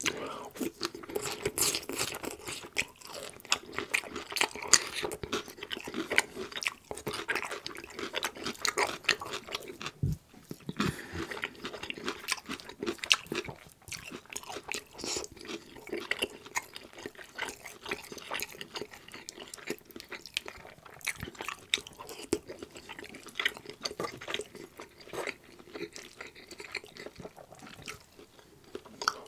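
Close-miked chewing and biting: a man eating green beans, Swedish meatballs and egg noodles with gravy, with dense short clicks and mouth noises throughout.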